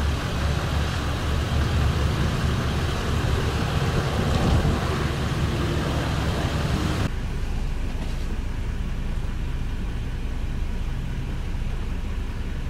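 A motor vehicle engine idling steadily under a broad outdoor noise. About seven seconds in, the sound changes abruptly to a duller, lower hum.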